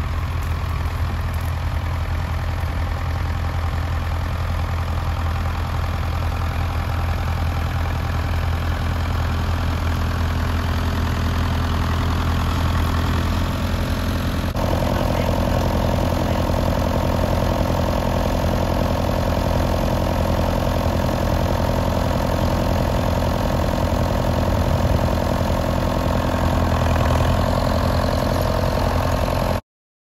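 David Brown 850 Implematic tractor engine running steadily, pulling a plough and then standing. About halfway through the sound shifts and a higher drone joins the low hum. It cuts off suddenly just before the end.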